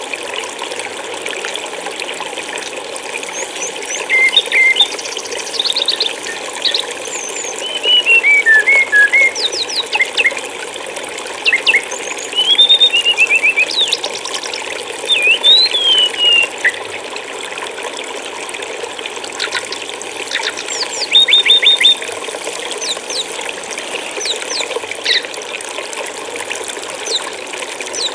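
Running stream water trickling steadily, with bursts of high, quick songbird chirps and trills over it through the middle, the birds falling mostly silent near the end.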